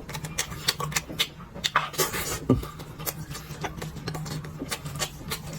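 Close-up eating sounds: wet chewing and mouth smacks with scattered short clicks, someone chewing cured pork, over a steady low hum.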